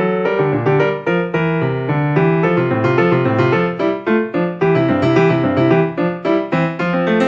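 Background piano music: a quick run of notes over a chordal bass line.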